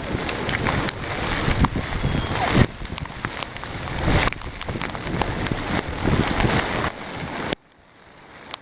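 Strong wind buffeting the microphone over surf, in swelling gusts with a few sharp ticks. The noise drops off abruptly near the end.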